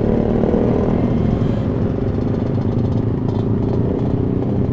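Motorcycle engine running at a steady speed, a constant low engine hum with no revving.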